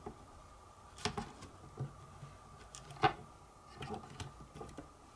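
Scattered small plastic clicks and taps as a flat flex cable is fitted into its connector on a Logitech Squeezebox Boom's circuit board, the sharpest click about three seconds in.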